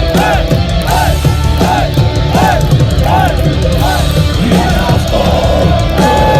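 Metalcore band playing live, loud distorted heavy metal with a dense low end. Over it runs a repeating phrase of rising-and-falling notes, a little over two a second.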